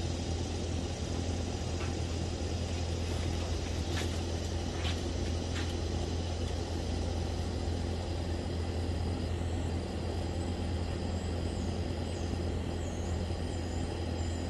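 A steady low mechanical hum, with a few faint ticks a few seconds in and faint high chirps near the end.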